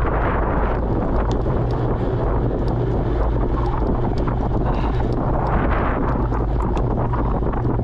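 Wind rushing over the microphone of a camera on a moving bicycle: a steady, loud low rumble, with faint scattered ticks above it.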